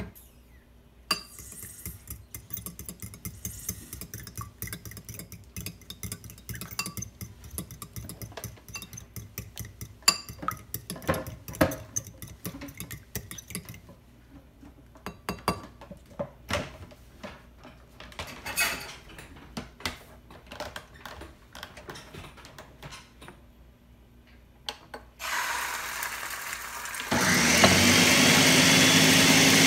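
A fork beating egg in a ceramic bowl: quick clinking and scraping for about the first half, then sparser taps. Near the end a hiss of the egg hitting a hot frying pan, then a louder steady motor drone starts up and rises in pitch before settling.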